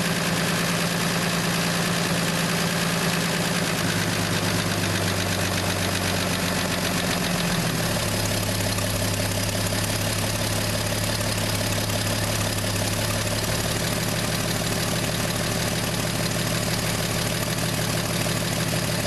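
1968 Plymouth Valiant's slant-six engine idling steadily, its speed shifting a few times. It has a slight shake at some speeds, which the owner puts down to distributor problems.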